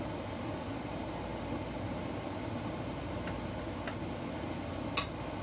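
Steady low background hum with a few light clicks from a small spoon against the plate as lumpia filling is spread onto a wrapper: two faint clicks past the middle and a sharper one near the end.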